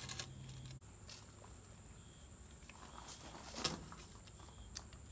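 Quiet handling sounds as a steel tape measure is hooked and laid along a wooden 2x4: a few light clicks and taps, the sharpest about three and a half seconds in, over a steady high-pitched whine. A low hum cuts off abruptly under a second in.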